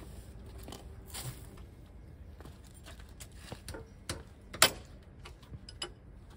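Scattered small clicks and knocks of objects being handled, the loudest a single sharp click about four and a half seconds in.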